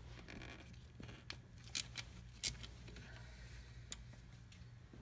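A few sharp metallic clicks and knocks from a wrench working the injection pump's 13 mm mounting bolts, the two loudest about two seconds in, over a low steady hum.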